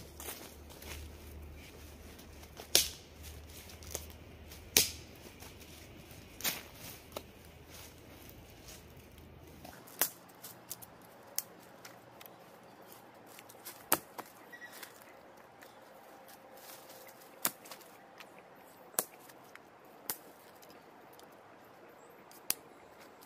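Dry twigs and sticks snapped by hand for kindling: about a dozen sharp cracks at irregular intervals, one every second or two.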